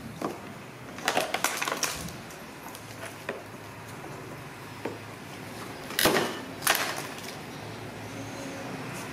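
Hard plastic knocks and clatters from a toy dump truck being climbed on and jostled by two baby monkeys: a quick run of clatters about a second in, and two louder knocks around six seconds in as the truck's tipper bed is pushed up.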